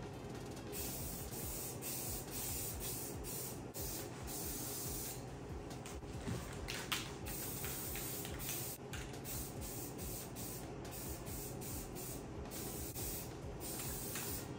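Aerosol spray can of primer hissing as it coats a bare axle housing, in repeated passes broken by short pauses.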